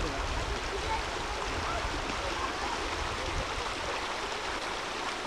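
Shallow stream running over stones, a steady rushing of water.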